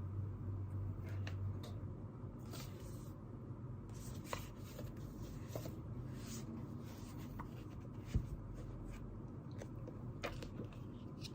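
Scattered light scratches, rustles and small taps of someone working at a desk, over a steady low room hum that eases off about two seconds in; one sharper tap comes near the end.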